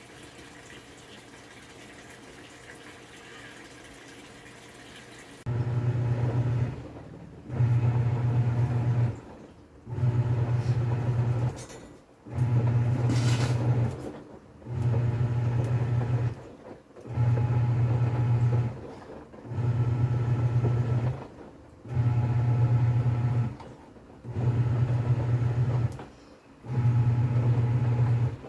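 TCL 7.5 kg top-load washing machine: water running in quietly for about five seconds, then the wash motor starts agitating. It runs in a deep hum of about a second and a half, stops briefly and starts again, roughly every two seconds: the pulsator churning the load back and forth in the wash stage.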